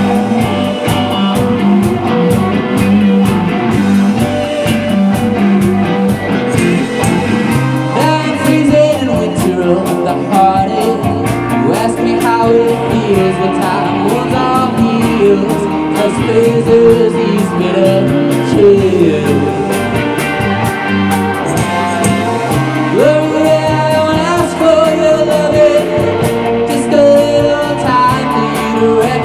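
Live psychedelic rock band playing: electric guitars over a drum kit, with a lead voice singing from about eight seconds in.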